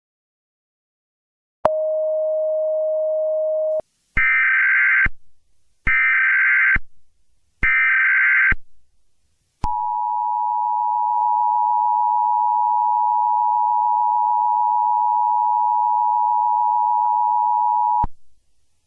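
Emergency Alert System tones. A steady tone lasts about two seconds. Then come three short screeching bursts of the SAME digital header, about a second each with gaps between. Then the two-tone EAS attention signal holds steady for about eight seconds and cuts off suddenly near the end.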